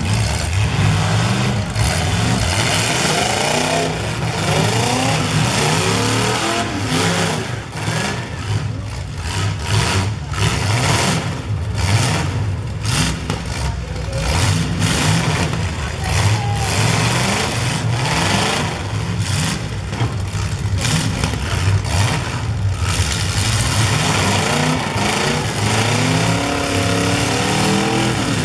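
Several full-size demolition derby cars' engines revving hard, rising and falling in pitch, with repeated bangs of car-on-car hits through the middle.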